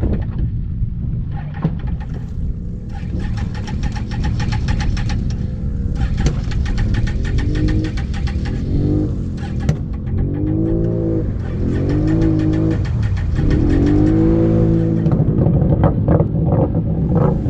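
Can-Am Outlander 850 ATV's V-twin engine running and revving, its pitch climbing and dropping about five times in the second half.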